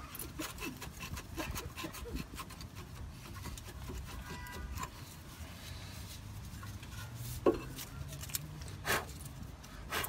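Steel brake caliper and worn brake pads being worked off the caliper bracket of a car's disc brake: scraping and rubbing of metal on metal with many light clicks, and a couple of sharper clicks near the end.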